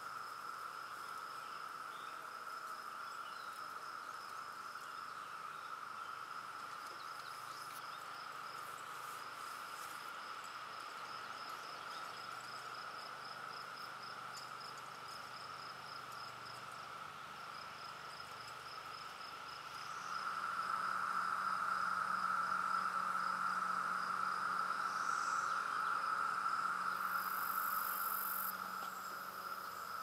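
A chorus of 17-year periodical cicadas: a steady, even drone that swells louder about two-thirds of the way in and eases back slightly near the end.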